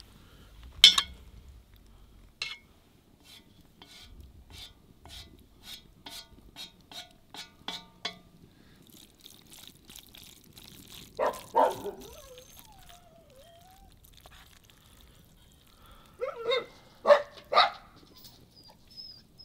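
A dog yelping twice in the middle and three times near the end, with a short wavering whine just after the first pair. Before that, a run of light clicks, about two or three a second.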